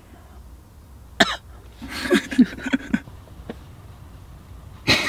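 A man coughing after inhaling from a vape pen. There is one sharp cough about a second in, then a rougher bout of coughing, and another burst near the end.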